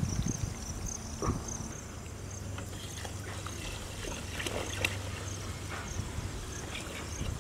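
Water pouring in a thin stream from a large plastic water can into a steel pot, with a light knock about a second in. Insects chirp steadily in the background, about two chirps a second.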